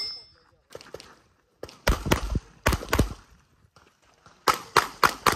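Competition pistol firing in quick pairs: about eight sharp shots as four doubles, each pair about a quarter second apart, with a short pause a little past halfway. Two fainter cracks come about a second in.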